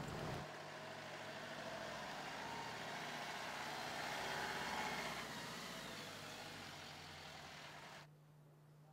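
Renault Master fire-brigade ambulance van driving past, its engine and tyre noise growing as it approaches, loudest about halfway through, then fading as it moves away. The sound drops off abruptly near the end.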